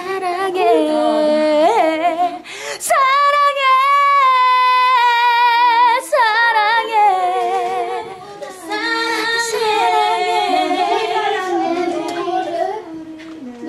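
A young woman singing 'saranghae' ('I love you') in Korean, stretching the syllables into long held notes. One steady note runs for about two seconds a few seconds in, and the later notes waver with vibrato.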